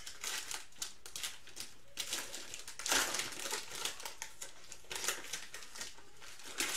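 Plastic wrapper of a football trading-card pack being torn open and crinkled by hand: irregular crackling rustles, loudest about three seconds in.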